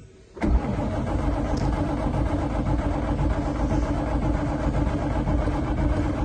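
1949 Ford Prefect's sidevalve four-cylinder engine being cranked on the starter motor for about six seconds without catching, then the starter is released.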